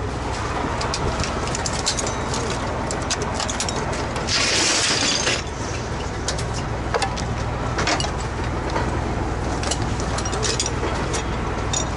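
Metal firefighting equipment clattering and clicking as it is handled in a fire truck's equipment compartment, with a hiss lasting about a second near the middle, over a steady low engine hum.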